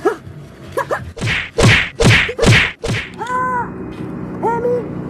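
Mock-fight strikes: four fast swishing whacks about 0.4 s apart, the kind of punch sound used in martial-arts fight scenes, followed by two short held tones.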